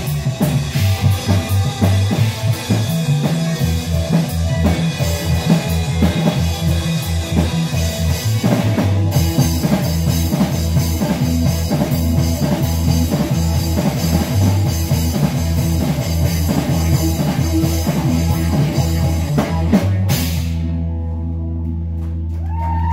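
Live rock band with electric guitar, bass guitar and drum kit playing loud and dense. About 20 seconds in the playing stops abruptly, leaving only a low steady tone.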